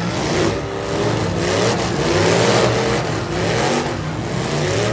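Several demolition-derby V8 engines revving hard, their pitch rising again and again and overlapping as the cars ram and push against each other.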